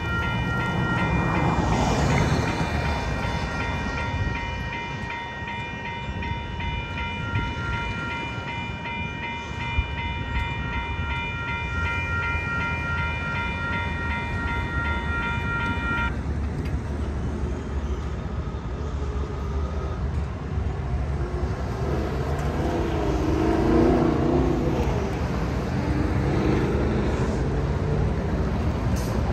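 Railroad crossing warning bell ringing with a repeating ding, stopping about 16 seconds in, over the steady rumble of road traffic.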